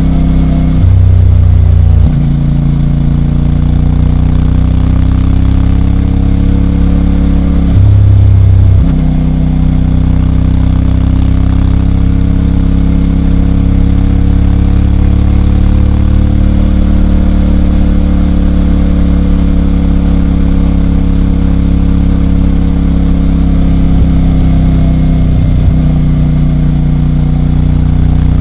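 CFMOTO 450MT's parallel-twin engine idling steadily, with two brief throttle blips, one about a second in and one around eight seconds in.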